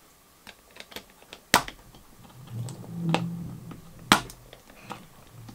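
Sharp clicks and light ticks of a screwdriver working the mounting screws of a Bitspower Summit REVO CPU water block, metal on metal and acrylic, with two louder clicks among the lighter ones. A brief low hum sounds near the middle.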